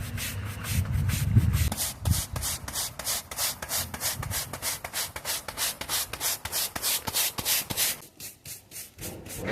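Kiln-dried sand being swept across a paved driveway into the joints, in short quick strokes about four a second, which pause about eight seconds in.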